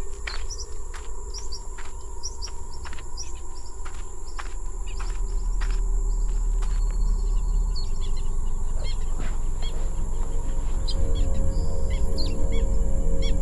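Birds chirping in bushland: many short, high calls over a steady low rumble. Through the first half there are sharp ticks about twice a second. Music with held notes fades in over the second half and grows louder toward the end.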